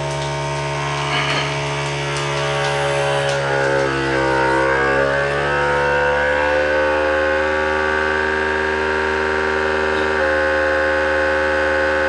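Bonsenkitchen vacuum sealer's pump running steadily, drawing the air out of a bag of beef stew meat on the dry setting. Its pitch dips about four seconds in, then rises and holds higher as the bag pulls tight.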